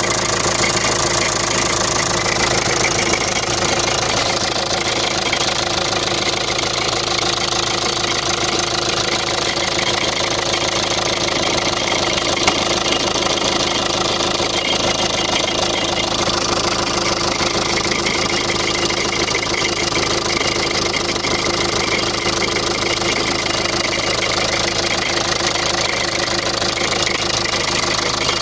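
2005 Jeep CRD common-rail turbodiesel engine idling steadily with its serpentine belt removed, running with an even knocking clatter, while the owner checks an odd noise.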